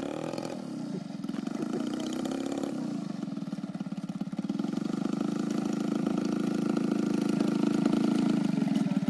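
Radio-controlled model airplane's engine running steadily as the plane taxis along the runway, growing louder as it comes closer.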